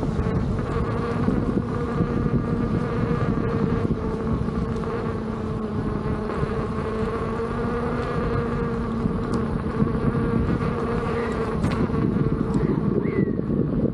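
Veteran Sherman S electric unicycle's hub motor whining at a steady pitch while riding, over a low rumble of wind and tyre noise.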